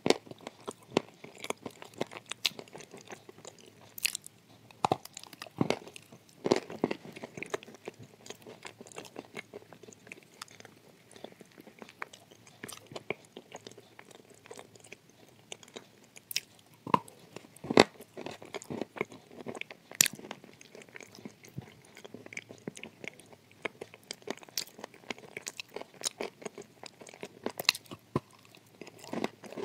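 A person biting off and chewing a dry, porous chunk of edible clay: irregular crisp crunches and crackles throughout, with a few louder bites now and then.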